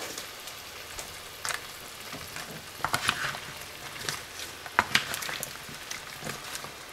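Pork, squash cubes and green beans sizzling in a frying pan in a little stock and black bean sauce, stirred with a utensil that scrapes and clacks against the pan several times.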